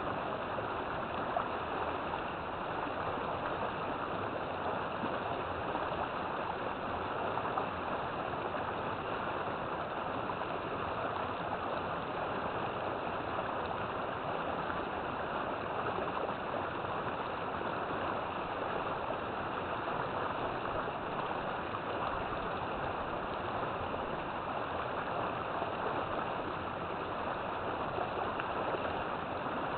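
River water flowing: a steady, even rush of running water, without a break or change.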